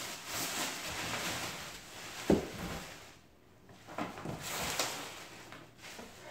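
Plastic wrapping crinkling and rustling as it is pulled off a countertop oven, with a single sharp knock about two seconds in.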